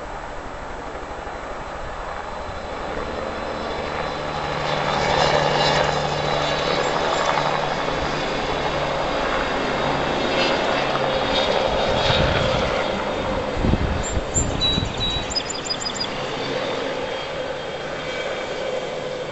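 Low-flying spray aircraft passing over for gypsy moth spraying, its engine drone swelling a few seconds in, holding strong, then easing off toward the end. A few thumps and clicks come about two-thirds of the way through.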